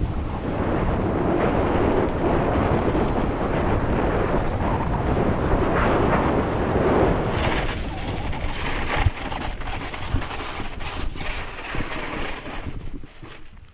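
Mountain bike speeding down a dirt road, with heavy wind rushing on the microphone and the tyres rolling over loose dirt. About halfway through the rush thins and the bike rattles with sharp knocks over bumps, then the noise dies down near the end.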